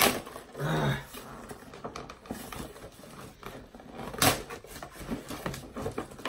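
Heavily taped cardboard shipping box being pulled and torn open by hand: a sharp rip right at the start and another about four seconds in, with rustling and scraping of cardboard in between.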